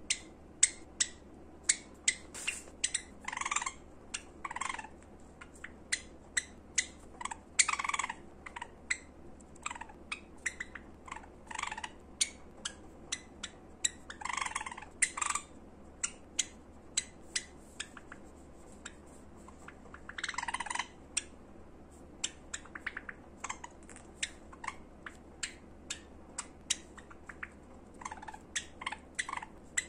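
Pet Java sparrows calling: a fast run of short, sharp chip notes, several a second, broken by louder rasping notes lasting up to about a second.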